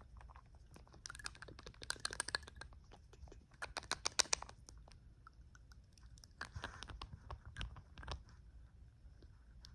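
Fast, rapid tapping and clicking in quick bursts of many strokes, close to the microphone, with a scratchy, rustling patch in the second half.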